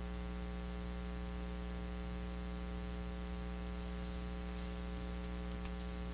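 Steady electrical mains hum with a faint hiss, one unchanging buzz made of many evenly spaced tones.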